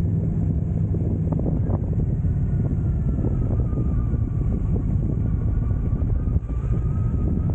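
Motorcycle engine running steadily on the move, with wind buffeting the microphone; a faint whine rises and falls in the second half.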